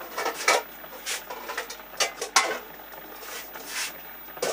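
Clatter of crockery and kitchen things being handled: a string of short, irregular clinks and knocks.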